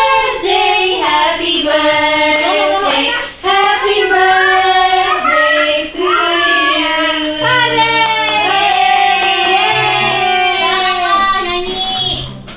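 A woman singing a song through a pink handheld karaoke microphone, with low backing-music notes coming in about halfway through; the singing stops just before the end.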